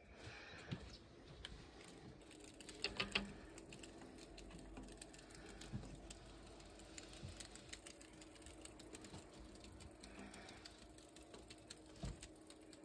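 Faint scattered clicks and taps of a cat's claws and paw on a roof window's glass and frame, with a quick cluster of sharper clicks about three seconds in.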